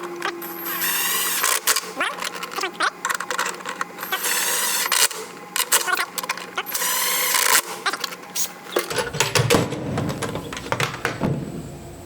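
Hand work on a boat's steering console: three short rasping bursts about a second each, among scattered clicks and metal knocks, then lower handling bumps near the end.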